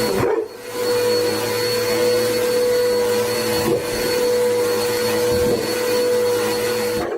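A small electric motor running steadily, a whine over rushing noise, with a brief dip about half a second in.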